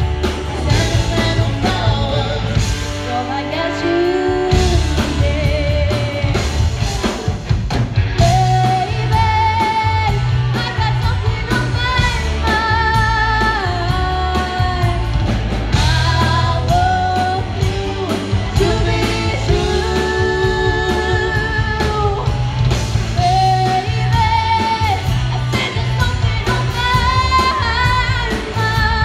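Live rock band playing: a woman sings lead, holding notes with vibrato, over electric guitars and a drum kit.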